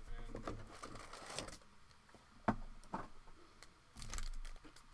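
Trading card packs being lifted out of a hobby box and handled, their wrappers rustling and crinkling, with two sharp clicks about two and a half and three seconds in.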